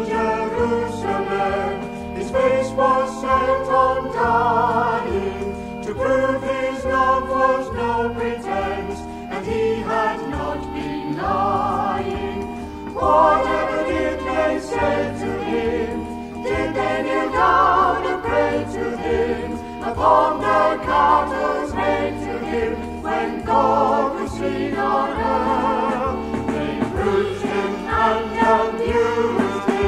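Recorded hymn-style music from a Salvation Army group of singers and brass players: chords in close harmony, held notes over a moving bass line, without a pause.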